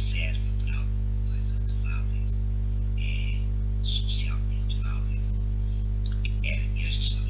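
Steady electrical hum, with short hissy sounds coming and going over it every second or so.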